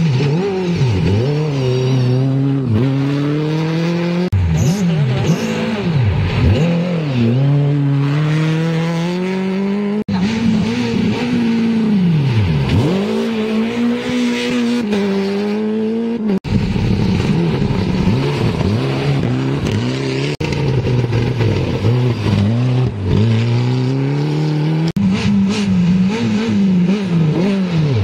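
Rally car engines passing at speed on a dirt stage, one car after another, revving hard with pitch climbing through the gears and dropping sharply on lift-off and downshifts. The passes are joined by abrupt cuts.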